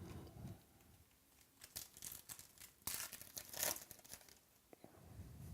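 Faint crinkling and rustling from trading cards and their pack wrapper being handled, in a cluster of quick scrapes and crackles in the middle.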